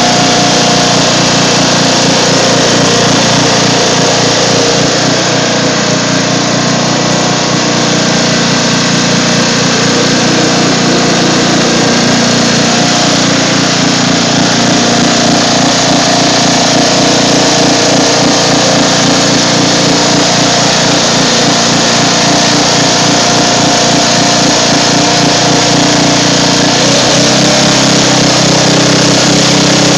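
Riding lawn mower engine running steadily at speed under load as the mower drives through shallow water; its note shifts a little near the end.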